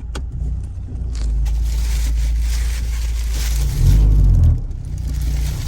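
2007 Mazda 3 being driven, heard from inside the cabin: a steady low engine and road rumble with a hiss, swelling louder for about half a second some four seconds in, and a few short clicks right at the start. The car rattles and vibrates badly, which the mechanic puts down to a weak engine mount.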